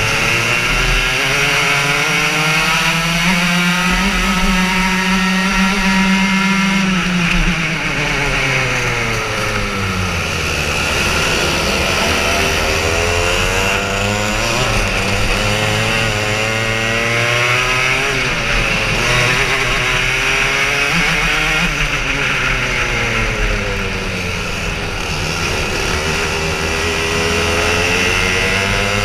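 Racing kart engines heard from on board: the kart's own engine revs up on the straights and drops off into the corners, again and again, with the engines of the karts running close around it crossing its note.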